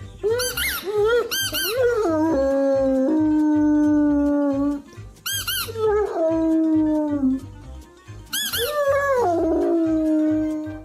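Dog howling in three long held notes, each sliding slightly down, with short high-pitched squealing yelps between them.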